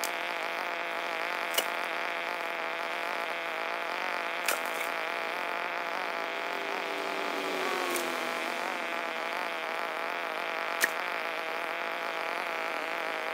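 An engine running steadily, with a slightly wavering drone, broken by four sharp knocks spread through.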